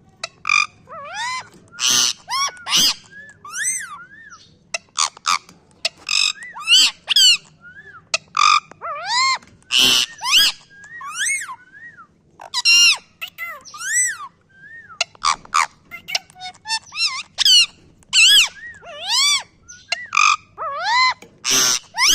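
Pet parrot giving a run of short, high-pitched, bark-like calls, each rising and falling in pitch, about one or two a second with brief pauses: its imitation of a dog barking.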